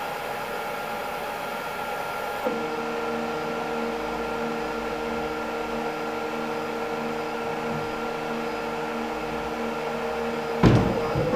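Robox 3D printer's extruder stepper motor whirring steadily as it feeds filament, a hum made of several steady tones. About two and a half seconds in, the tones change with a small click. Near the end a sharp click, the loudest sound, is followed by a higher motor tone.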